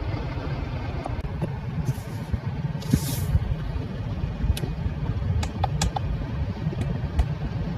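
Light plastic clicks of a car's steering-wheel buttons being pressed, several in quick succession about two-thirds of the way through, over a steady low rumble with two brief rubbing hisses in the first half.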